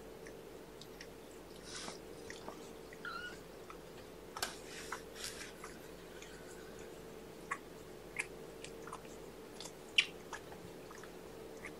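Soft, scattered clicks and rustles from a mother cat and her kittens moving about on the bedding, over a steady faint hum, with one sharper click about ten seconds in.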